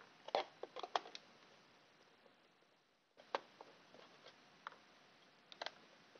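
Small sharp clicks and taps of a screwdriver working screws out of a plastic device case. There is a quick flurry of clicks in the first second, then scattered single clicks and a close pair near the end.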